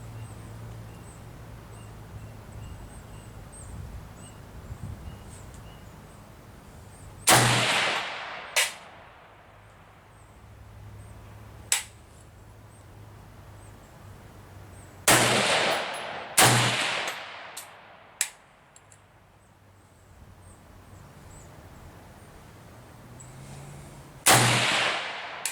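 Zastava M70 Zpap AK-pattern rifle firing single 7.62x39mm steel-cased full metal jacket rounds: four loud shots, the middle two about a second and a half apart, the others several seconds apart. A few fainter sharp cracks fall between the shots.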